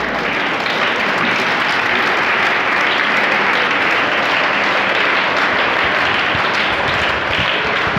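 A large audience of schoolchildren applauding with steady, sustained clapping.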